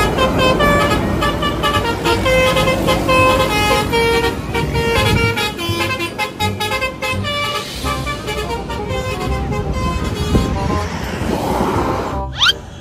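Basuri telolet multi-tone bus horn playing a fast tune of short tooting notes over a steady low engine rumble. Near the end comes a short rising glide.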